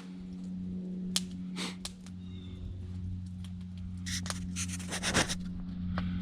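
Breakfast being cooked over a camp stove: sharp clicks of a utensil against cookware, and a brief run of rapid scraping and rattling a little past halfway. A steady low hum runs underneath.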